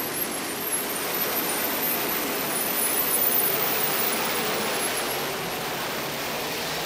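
Pratt & Whitney PT6 turboprop engine running just after a good start, a steady rush of noise with a thin high-pitched turbine whine over it, its propeller still feathered. It is heard through the test cell's glass window, swelling slightly about halfway through.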